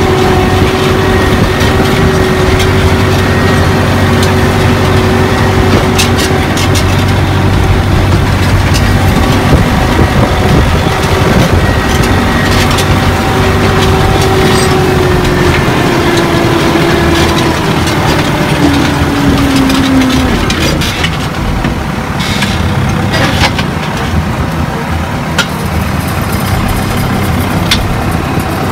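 Fiat 640 tractor's four-cylinder diesel engine running steadily under load. About two-thirds of the way through, its note drops in a few steps and it runs quieter, with a few scattered clicks.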